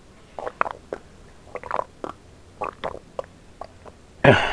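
A person gulping water from a glass jar, a run of about eight swallows roughly half a second apart, then a loud breath out near the end as the jar comes away from the mouth.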